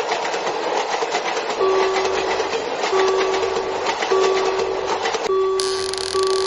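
Cartoon sound effect of a train running past with a steady rushing clatter, while a level-crossing warning signal repeats a steady tone in pulses of about a second. A brighter hiss joins near the end.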